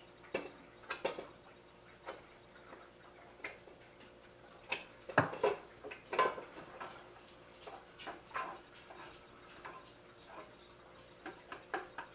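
Utensil knocking and clinking against a pot and its glass lid while the food is stirred: scattered light clicks and knocks, a couple louder about five and six seconds in, over a faint steady hum.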